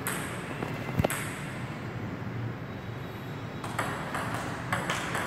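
Table tennis ball struck by paddles and bouncing on the table in a rally: sharp clicks, a loud one about a second in, then a quicker run of clicks near the end.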